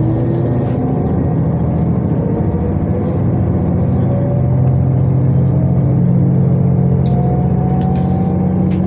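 Diesel railcar engines running under power as the train pulls away from the platform. A steady low drone with tones that slowly rise in pitch as it gathers speed, heard from inside the passenger car.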